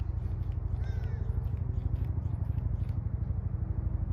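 A small engine or motor running steadily with a fast, even pulse, and a short high call about a second in.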